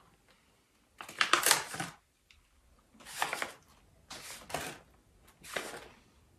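Crunchy chewing of salty peanut snack balls: four bouts of crunching, about a second apart.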